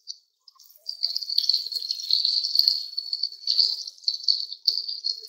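Onions, tomatoes and freshly added ginger-garlic paste frying in hot oil in a steel pot: a dense crackling sizzle that starts about a second in.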